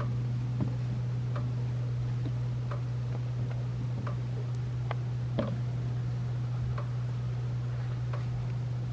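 A steady low electrical hum with faint light ticks repeating about every two-thirds of a second.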